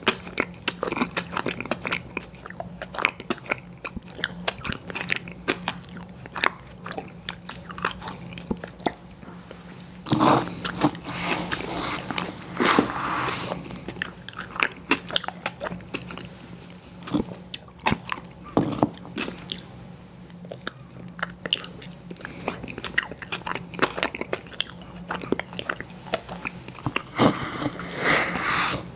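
Close-miked eating of ice cream: a run of quick, wet mouth clicks and smacks from chewing, broken by a few longer, louder stretches of mouth noise.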